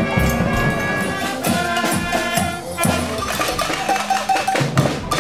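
Music with a busy percussion beat of drums and sharp, frequent strikes over held pitched instruments.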